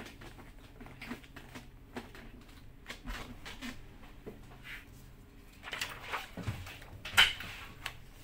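Soft rubbing and handling noises from a cloth being worked inside a full-face motorcycle helmet, with scattered light clicks and one sharper knock about seven seconds in.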